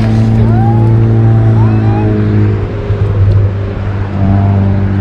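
A motor engine running steadily with a low hum, easing off briefly around the middle and then picking back up.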